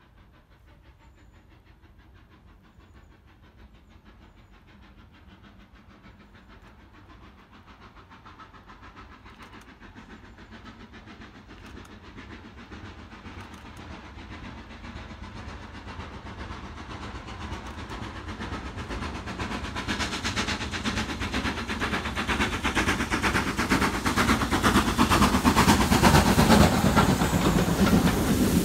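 BR Standard Class 5 steam locomotive 73156 working a train, its rapid exhaust beats growing steadily louder as it approaches from a distance. Near the end it passes close by with steam hiss and its coaches rolling over the rails.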